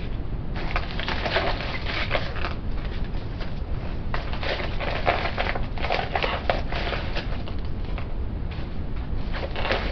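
Rustling and crinkling of makeup products and their packaging being packed into an Ipsy cosmetic bag, in irregular bursts with short lulls.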